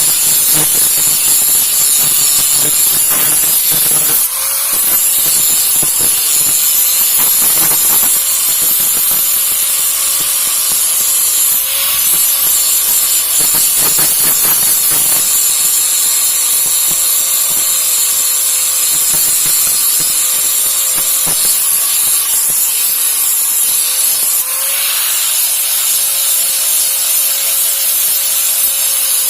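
Electric grinding tool running steadily under load, abrading a machete's steel blade: a continuous hiss over a steady motor whine that sags briefly a couple of times.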